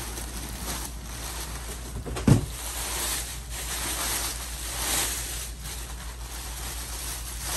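Clear plastic bag rustling and crinkling as a bagged RC monster truck is lifted and handled, with one heavy thump about two seconds in as the truck is set down on a wooden table.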